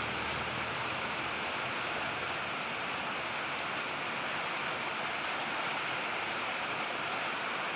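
Steady rain falling: an even, unbroken hiss with no single drops or other events standing out.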